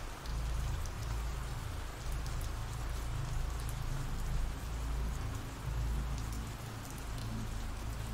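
Steady rain falling, with a low rumble underneath and scattered faint drop ticks.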